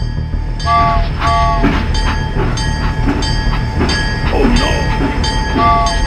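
Toy steam locomotive's whistle sounding two short toots about a second in and two more near the end, over an even chugging rhythm.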